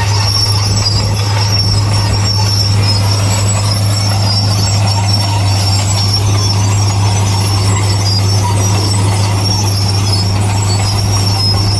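Heavy construction machinery running steadily: a constant deep engine drone with a thin high squeal over it.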